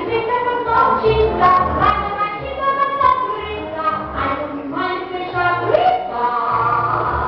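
Show-tune music with female voices singing over a backing track with recurring bass notes.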